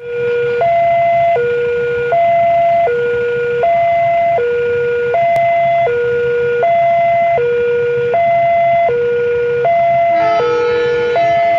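Two-tone electronic warning siren at the railway, alternating steadily between a low and a higher tone about every three-quarters of a second, warning of an approaching train. About ten seconds in, the approaching CC 201 diesel locomotive sounds its horn once, briefly, over the siren.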